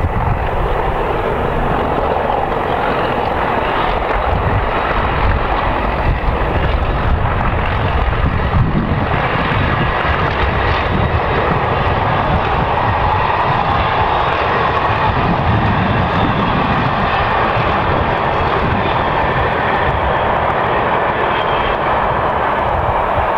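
Class 37 diesel locomotives' English Electric V12 engines working a test train, a steady drone.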